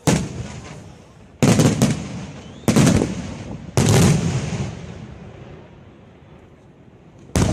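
Aerial firework shells bursting in a display: four loud bangs about a second apart, each echoing away, then a pause and another bang near the end.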